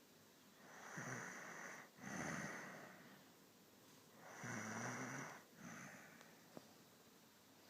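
Snoring: two rounds of slow, heavy sleep breathing, each a low rattling snore followed by a breathy rush of air, about three and a half seconds apart. A faint click comes near the end.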